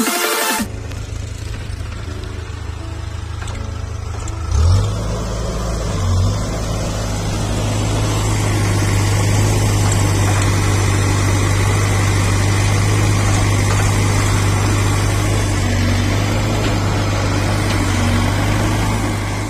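Heavy diesel engine running steadily at a low pitch, revving briefly twice about four and a half and six seconds in, then settling into a slightly louder steady run under load.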